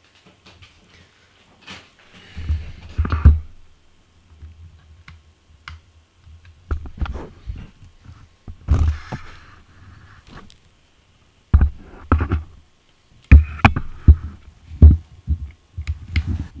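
Handling noise close to the microphone: irregular knocks, thumps and rustling with a low rumble, in several clusters, as the camera and its battery are fumbled with.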